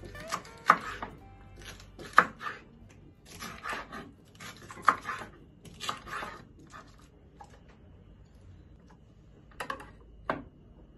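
Kitchen knife slicing a red bell pepper on a wooden chopping board: sharp knocks of the blade on the board, single and in quick runs, through the first seven seconds, then two more knocks near the end.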